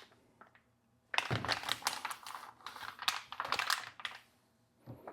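Packaging being handled: crinkly, clicky rustling of plastic and cardboard in several bursts, starting about a second in and stopping shortly before the end.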